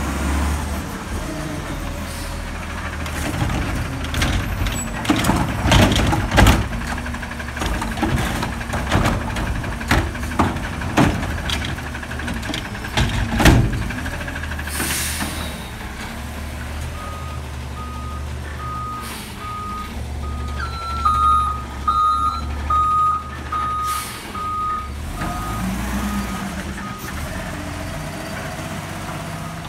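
Recycling truck's diesel engine running while its automated arm dumps a cart: a run of bangs and clatters as the cart is shaken and recyclables drop into the carry can. A short air hiss follows, then the truck's reversing beeper sounds about twice a second.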